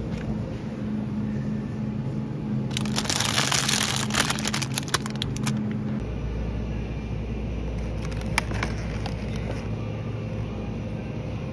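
A plastic bag of grapes crinkling and crackling as it is handled, for about three seconds, over a steady low hum. Later, a few lighter crinkles and clicks as a plastic kiwi clamshell is picked up.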